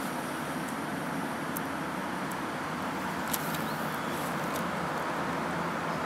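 Steady outdoor background noise, an even hiss and rumble like distant road traffic, with a few faint clicks as a small plastic action figure is handled.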